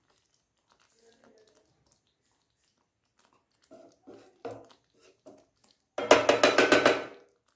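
A wooden spatula knocks softly against the pan a few times while turning fish in thick gravy. Near the end comes about a second of loud, rapid clattering, some eight to ten strikes a second.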